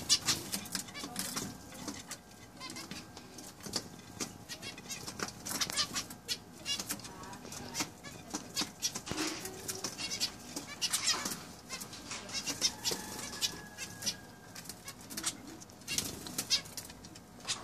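A small flock of zebra finches calling: many short chirps overlapping in quick succession, with now and then a flutter of wings.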